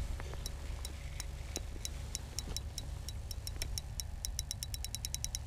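Spinning reel clicking while a hooked fish is played on light line: a run of sharp ticks that speed up after about three and a half seconds, over a steady low wind rumble.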